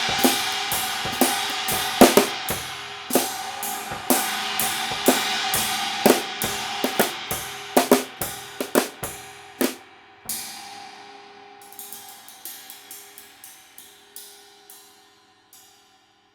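Drum kit played with thin rods, including a repaired Byzance china cymbal. Rapid strokes on the drums and cymbals run for about ten seconds. A heavy crash follows with a long ring-out, then a few lighter strokes as the playing winds down and stops.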